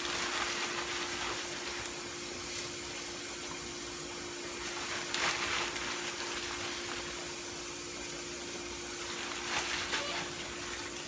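Pork steaks simmering in broth in a deep pan, a steady bubbling hiss, under a steady low hum. A plastic bag rustles briefly a couple of times as chopped green bell peppers are shaken into the pan.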